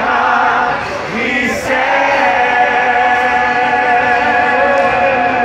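A group of people singing together in unison, holding long sustained notes, with a short break about one and a half seconds in before the held singing resumes.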